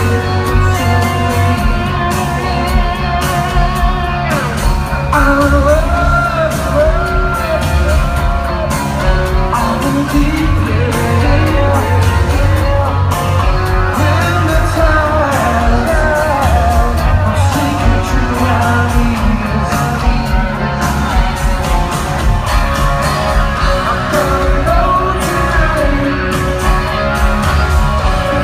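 Live rock band playing a mid-tempo song: electric guitars, bass and drums under a singing voice, loud and continuous.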